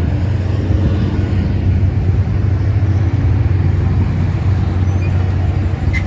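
Steady low rumble of vehicle noise.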